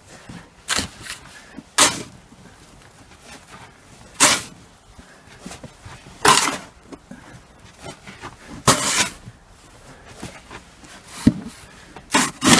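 Plastic snow shovel digging into and scraping deep, heaped snow in a string of short strokes, one every two seconds or so.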